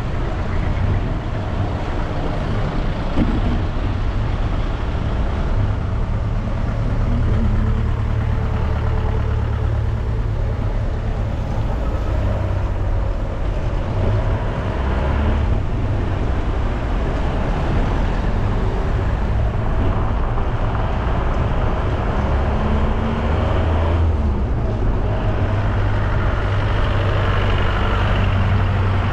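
Road traffic: cars and trucks passing along the street, with engine tones coming and going over a steady low wind rumble on the microphone of a moving bicycle.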